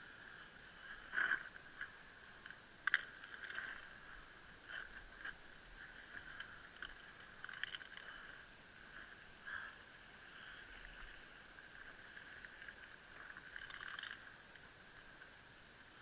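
Muffled handling noise from a body-worn action camera: scattered knocks and scrapes as the wearer moves over rocks, with the two loudest knocks about a second and three seconds in.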